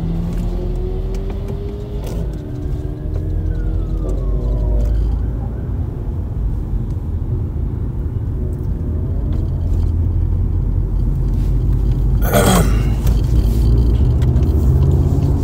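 Steady low road and engine rumble inside a moving car's cabin. A few seconds in, a whine rises and then falls. About twelve seconds in there is a short, sharp burst of noise.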